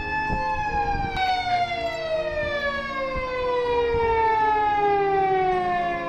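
Siren of a JR West emergency road vehicle wailing: one long tone held steady for about a second, then falling slowly in pitch through the rest of the sound.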